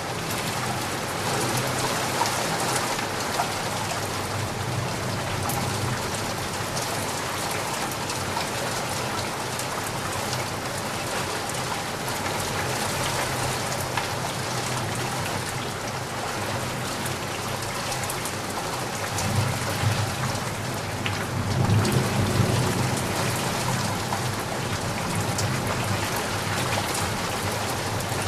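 Steady rain falling and pattering on surfaces, a dense even hiss. About two-thirds of the way through, a low rumble of distant thunder swells up for a few seconds.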